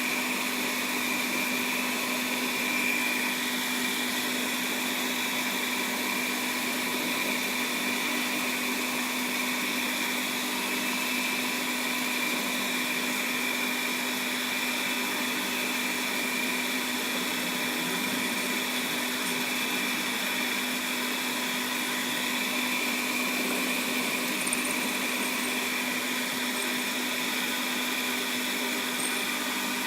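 Small metal lathe running steadily, a constant motor whine with several steady tones over a noisy hum.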